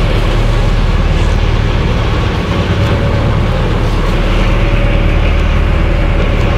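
A motorboat's engine running steadily under way: a loud, even low drone over the constant rush of water from the boat's wake.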